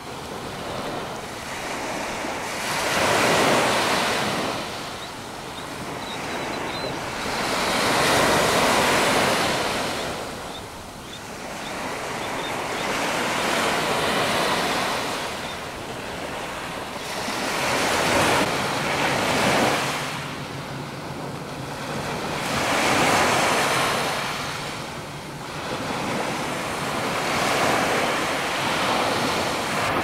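Small waves washing onto a sandy beach, the surf noise swelling and fading about every five seconds.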